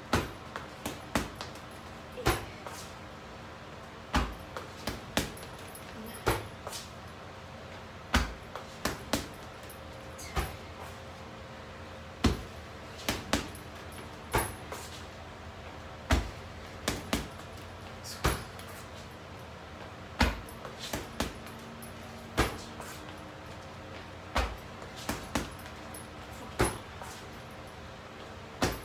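Gloved strikes landing on an Everlast heavy bag: sharp thuds in quick groups of two to four, a group about every two seconds.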